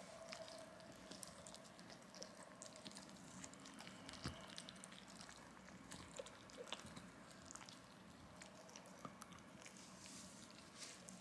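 Faint, wet chewing and licking of a dachshund gnawing a meat chew, a stream of small irregular clicks and smacks.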